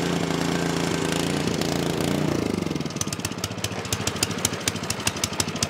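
Ariens Snowtech snowblower's LCT engine running steadily. About two seconds in, its speed drops and it runs unevenly with irregular firing: the engine surging at high idle.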